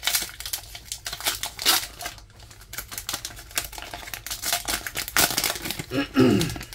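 Foil Pokémon booster pack crinkling and crackling as it is handled, then torn open near the end.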